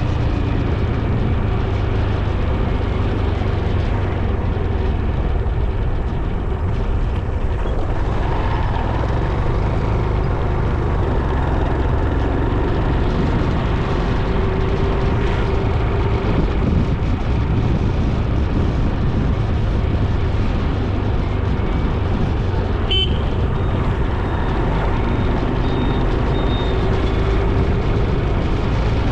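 Steady road and wind noise heard on the rider's camera during a road ride, a constant low rumble with a vehicle running underneath. About two-thirds of the way in there is a sharp click and a brief high toot, and later another faint high toot.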